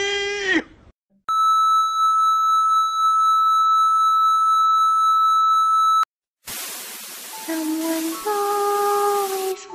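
A steady high-pitched test-pattern beep held for about five seconds. After a short break, television static hiss starts, with a simple melody of held notes beginning over it about a second later.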